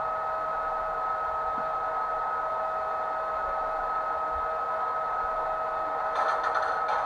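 Sound decoder of a model E464 electric locomotive playing its standing-still sound through a small speaker: a steady electric whine made of two held tones over a hum of noise. A brief rattling hiss comes about six seconds in.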